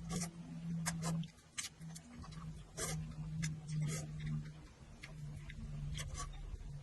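Close-up eating sounds from chewing spicy glass noodles: an irregular string of sharp wet clicks and smacks from the mouth, over a low steady hum.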